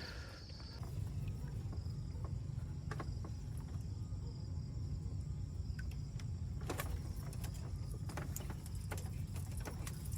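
Outdoor ambience: a steady low rumble with insects chirping in a thin, high, continuous band, and scattered small clicks.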